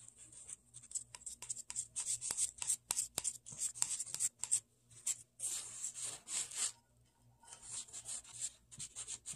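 Metal palette knife scraping through soft, lightweight white air-dry clay on a work board: a quick run of short rubbing strokes as the clay is spread and scooped onto the blade, with a brief pause about seven seconds in.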